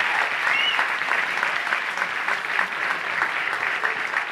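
A room of seated guests applauding: steady, dense hand-clapping.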